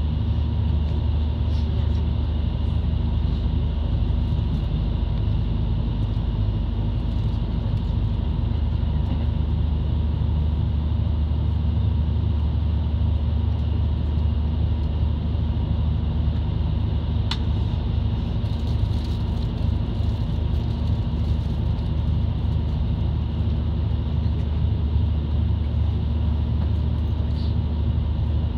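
Running noise of a JR Kyushu KiHa 72 series diesel railcar, heard inside the cabin: a steady low rumble of the engine and wheels on the track. A single sharp click about 17 seconds in.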